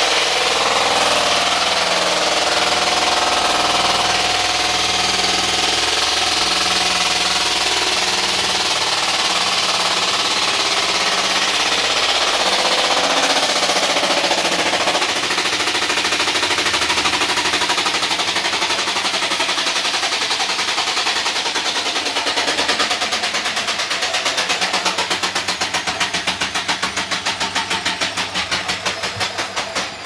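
Hotpoint front-loading washing machine running loud with its drum spinning, a steady motor hum under heavy noise. About halfway through a fast, even rattling knock sets in and the level starts to pulse: an abnormal, noisy running.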